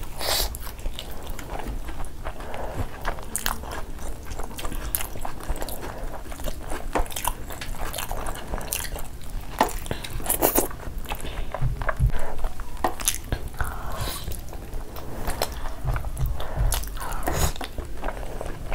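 Close-up eating sounds of two people biting and chewing mutton shank meat off the bone and curry-soaked rice eaten by hand, with many short, irregular clicks.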